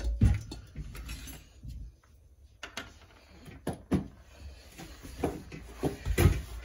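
Handling knocks and thumps, the heaviest just after the start, as a heavy hermetic refrigerator compressor is set down on the floor. Scattered clicks and knocks follow, with a loud cluster near the end.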